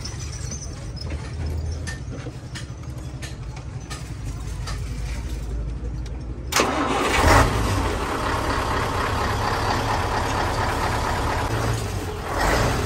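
Mercedes-Benz 2538 truck's diesel engine: a low steady rumble, then about six and a half seconds in it suddenly gets much louder and runs on steadily, with another brief swell near the end.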